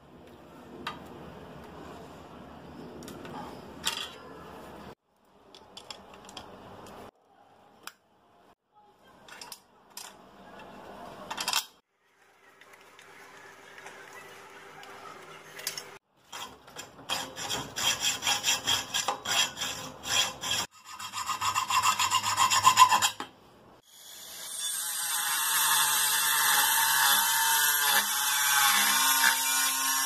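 Hand work on a metal bike rack: quiet scraping and small clicks of tools on bolts, then a file rasping on the edge of the metal angle in fast strokes, about four a second. Near the end a rotary tool with a cutting disc runs with a steady high whine as it cuts a metal bar.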